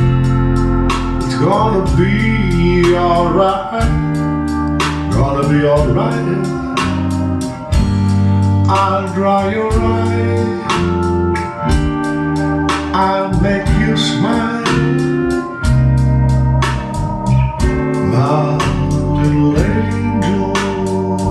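Music: sustained keyboard chords over a bass line with a steady, evenly spaced beat, and a melody line that bends in pitch.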